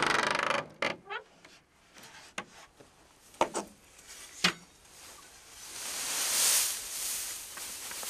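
Creaking and knocking of old wood, a few separate creaks and knocks, then a swelling rustle of hay being tossed down onto the ground, loudest about six and a half seconds in.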